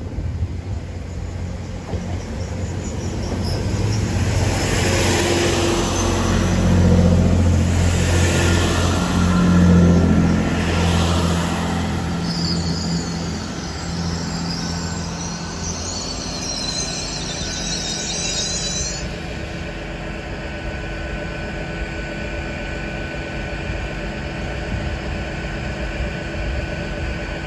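A Great Western Railway Class 800 bi-mode train runs on its diesel engines as it draws into the platform, with a Class 166 diesel unit passing on the other line. The rumble swells twice in the first ten seconds or so. A high squeal is heard from about twelve to nineteen seconds in as the train comes to a stop, and a steady engine drone follows.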